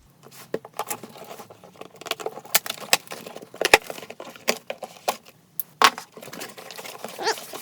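A cardboard shipping box being opened and its packaging handled: irregular rustles, clicks and knocks, with a sharper knock near the middle and another about six seconds in.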